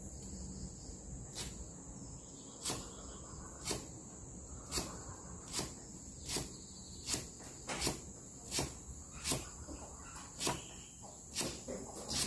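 Knife slicing lemongrass stalks on a cutting board, a sharp cut about every second, over a steady high drone of insects.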